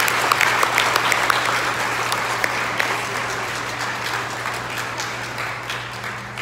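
A large audience applauding, the clapping gradually dying down.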